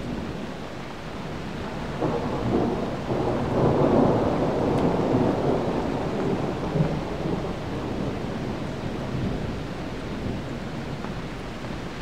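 A roll of thunder over steady rain: the rumble builds about two seconds in, peaks around four seconds and dies away over the next few seconds.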